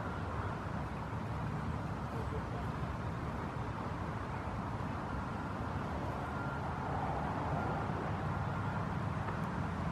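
Steady low rumble of distant road traffic, with no distinct nearby sounds standing out.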